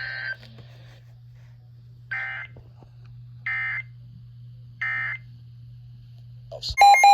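NOAA Weather Radio end-of-message SAME data bursts: three short, identical warbling digital bursts about 1.3 seconds apart over a low hum, marking the end of a warning broadcast. Near the end a much louder, harsh buzzing alert tone cuts in.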